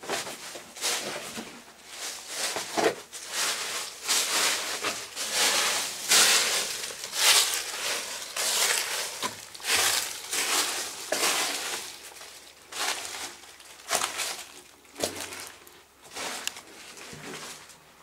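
Footsteps crunching over dry dead leaves and debris, one rough crunch after another about once a second, thinning out near the end.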